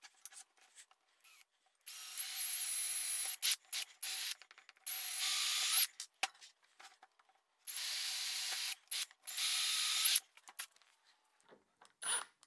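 Cordless Milwaukee Fuel impact driver fitted with a drill bit, drilling holes through the wooden plywood mount in five runs of about half a second to a second and a half each, with a high whine over the cutting noise. Short bursts of the driver come again near the end.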